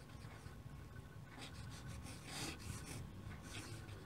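Pen scratching on paper in a series of short strokes as a signature is written; faint, with a low steady hum underneath.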